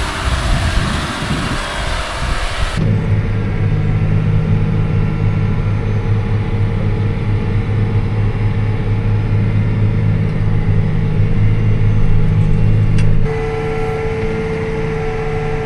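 Diesel tractor engine running steadily under load while packing silage: a rough rumble for the first few seconds, then a sudden switch to an even engine drone, which changes to a quieter drone with a higher held tone near the end.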